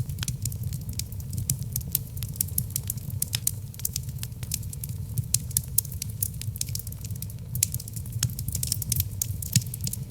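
Logs burning in a fireplace, crackling and popping in dense, irregular snaps over a steady low rumble.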